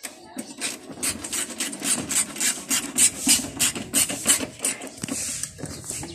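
Rough metallic scraping in quick repeated strokes, several a second, as a T-handle socket wrench is worked on a bolt at the headlight and bumper mount.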